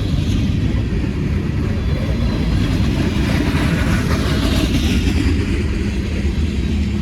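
Freight train rolling past: a steady low rumble of railcar wheels on the rails.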